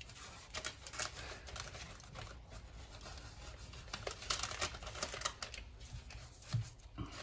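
Parchment paper crinkling and rustling in irregular small crackles under the fingers as the edges of a puff pastry sheet are pinched up on a lined baking sheet.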